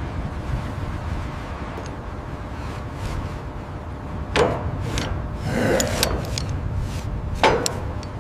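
Steady low rumble with a few sharp knocks, the loudest about four and a half and seven and a half seconds in, and a scraping rub between them.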